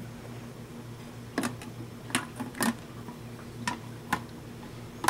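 Light plastic clicks and taps, about five scattered over a few seconds, as the aquarium's clear plastic lid is handled and set onto the tank, over a steady low hum.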